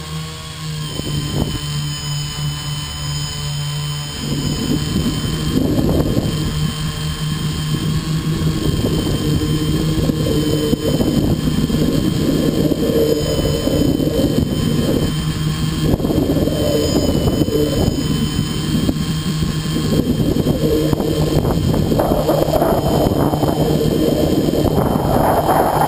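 Tricopter's three electric motors and propellers running in flight, heard from the onboard camera: a steady hum with a rough, gusty rushing noise that swells from about four seconds in and grows stronger towards the end.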